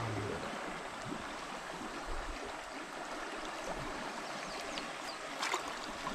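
Steady rush of river water flowing past the rocks, with small splashes as hands move in the shallows and one brief splash about five and a half seconds in.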